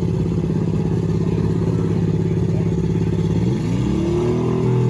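Demolition derby car's engine running steadily, then revving up about three and a half seconds in.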